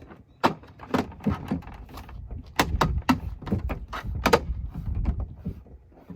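An RV door and its newly fitted window frame being handled, giving an irregular run of knocks and clunks, about a dozen, over a low rumble of wind on the microphone.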